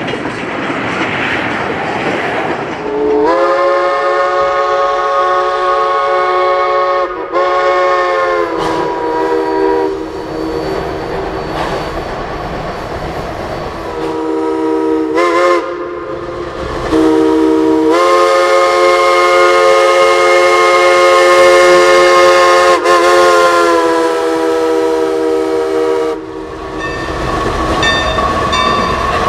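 Multi-note chime steam whistle of a geared logging steam locomotive sounding several blasts: a long blast a few seconds in followed by a shorter one, a couple of quick toots around the middle, and a long held blast of about eight seconds. Between the blasts the locomotive's exhaust chuffs steadily.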